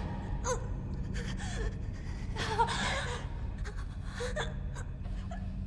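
A young woman's voice gasping for breath several times in short, strained breaths, over a steady low hum.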